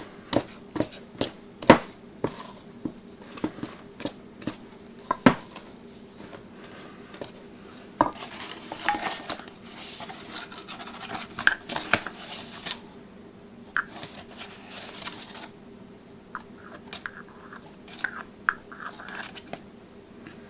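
Wooden spoon stirring wet, loose bread dough in a stainless steel mixing bowl: irregular knocks and clacks as the spoon hits the bowl's side.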